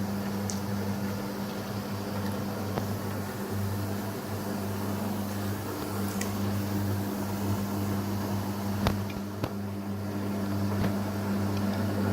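Gorenje WA63131 front-loading washing machine running its first rinse on the Synthetics 40°C programme: a steady low hum with a few sharp clicks, mostly in the second half.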